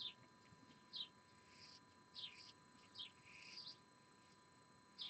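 Near silence broken by about six faint, short, high chirps, each gliding downward and spaced roughly a second apart, like a small bird calling.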